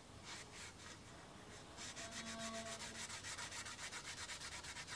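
Fine abrasive pad (Scotch-Brite type) rubbed by hand over the metal leading edge of a propeller blade, polishing out the coarse file marks left from dressing a nick. A couple of strokes come first, then from about two seconds in a quick, even back-and-forth rubbing, several strokes a second.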